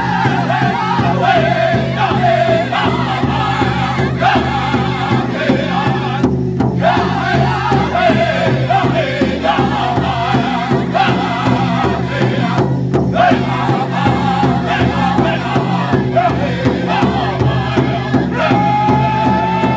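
Powwow drum group of several singers singing in high-pitched unison over a steady, even beat on a shared drum. The singing breaks off briefly twice, about six and thirteen seconds in.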